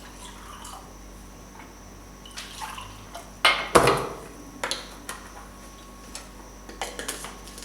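Liquid splashing and dripping, with a few sharp clinks of a spoon against dishes, the loudest a little over three seconds in.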